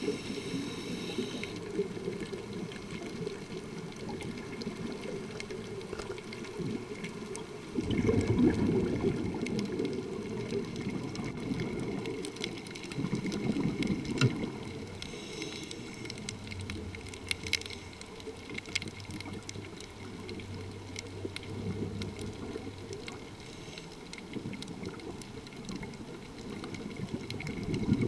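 Muffled underwater noise heard through a dive camera's housing, with uneven surges of scuba exhaust bubbles gurgling, the strongest about eight seconds in and another near the end.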